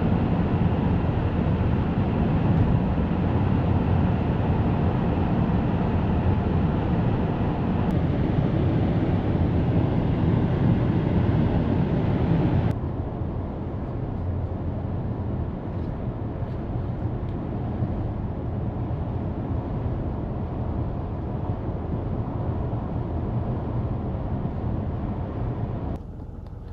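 Steady road and wind noise of a car driving at speed. The noise drops abruptly to a lower, duller level about halfway through.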